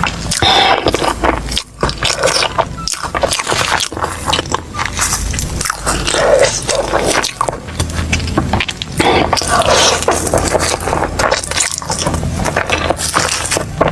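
Close-miked eating sounds: chewing and mouth noises over a plate of fried rice vermicelli (bihun goreng), a dense run of small clicks and crackles.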